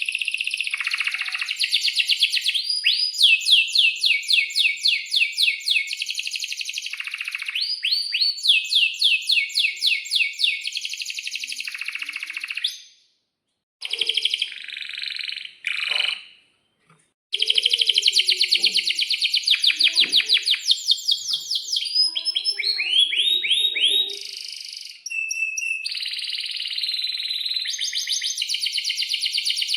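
Domestic canary singing: long rolls of rapid, evenly repeated high notes and trills, broken by two brief pauses about 13 and 17 seconds in.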